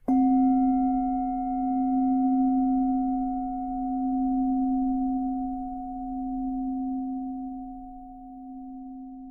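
A meditation bell struck once, ringing on as a long low tone with fainter higher overtones that slowly fades with a gentle wavering swell. It is the signal marking the end of a minute in a timed meditation.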